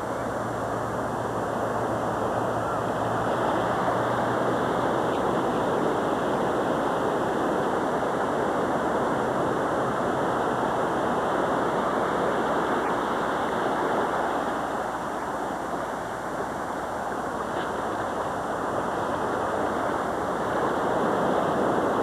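Ocean surf washing steadily onto a beach, a continuous rushing noise that swells and eases slightly.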